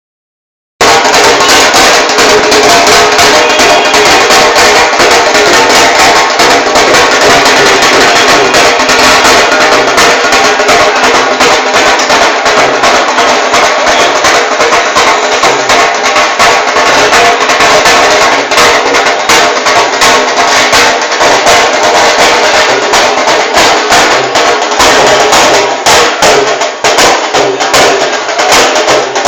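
Very loud percussion-led music: fast, dense drumming and clattering beats. It starts suddenly about a second in and keeps going without a break.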